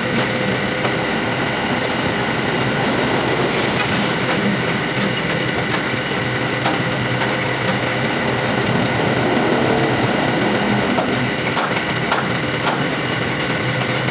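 Metal lathe running steadily, a loud even machine drone with a couple of held tones and scattered sharp ticks, as a part is machined.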